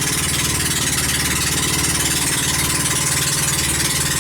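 Engine of a banca outrigger pump boat running steadily under way, with a fast, even firing pulse and a steady hiss over it.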